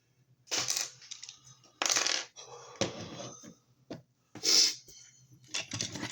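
Hard plastic toy figure parts clicking and clattering as the figure is handled. The sound comes as about five short, sharp bursts.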